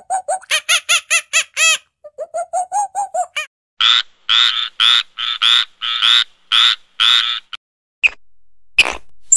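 A rapid run of short pitched animal calls, about five a second, then a frog croaking: about seven rasping croaks roughly half a second apart. Two short sharp calls come near the end.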